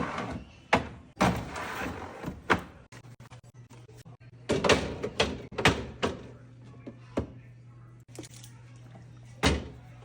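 Knocks and thunks of a plastic-and-glass fridge shelf or drawer being handled and set down, about a dozen separate bumps, with a steady low hum underneath.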